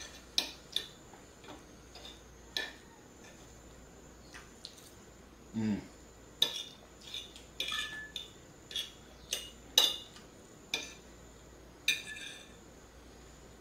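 Cutlery clinking and tapping against a plate in irregular, separate strikes, as during a meal.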